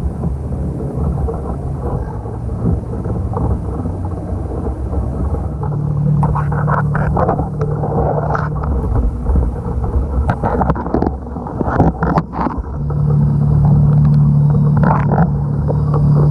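A boat's motor running with a steady low hum and rumble, with a spell of knocks and rattles in the middle.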